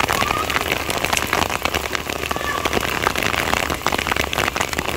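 Heavy rain falling steadily, with a dense, continuous hiss full of sharp drop clicks as it hits concrete rooftops and standing water.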